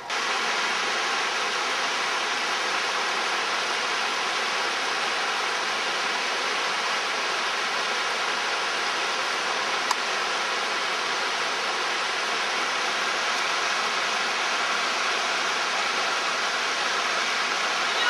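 River water rushing steadily, with one brief click about ten seconds in.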